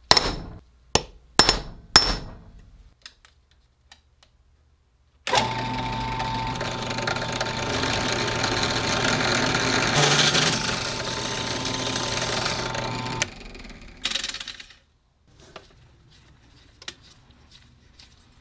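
A center punch on a black iron pipe tee struck four times: sharp metallic taps in the first two seconds. Then a drill press runs with a steady hum for about eight seconds as a bit drills into the tee, and stops.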